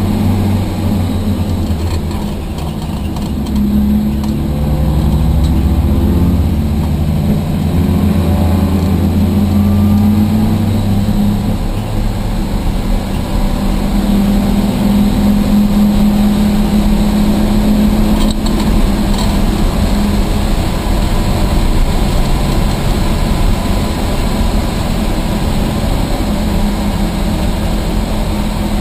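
Rambler race car's engine running hard, heard from inside its stripped cabin. Its pitch rises and falls with the throttle, with a brief dip in level about two seconds in.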